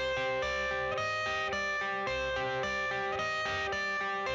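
Background music: an instrumental intro of plucked guitar notes over a steady beat.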